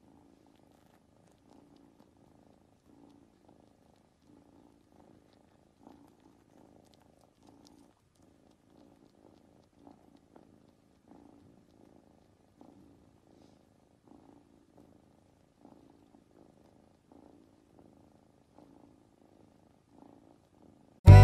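A tabby kitten purring faintly, the purr swelling and easing in an even rhythm about every second and a half as it breathes.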